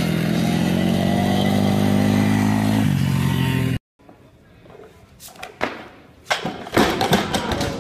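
Several small dirt-bike engines running hard together, with a rising whine in their note, cut off suddenly about four seconds in. After a brief silence come scattered knocks and thuds from a loaded barbell being lifted, the loudest thump near the end.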